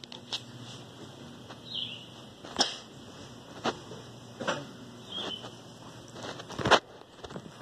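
Kittens scampering and play-fighting on a hard porch floor: scattered taps and knocks from paws and from the handheld phone, about five in all, the loudest near the end. Two faint, short, high chirps come in between.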